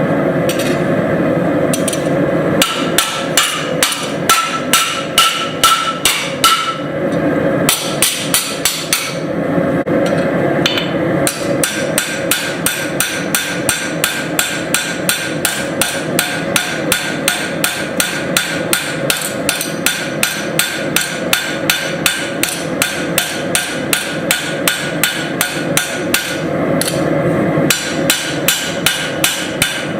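Forging hammer striking a steel cross blank on an anvil in a steady rhythm of about two blows a second, each with a short metallic ring, broken by a few brief pauses. A steady rushing noise runs underneath.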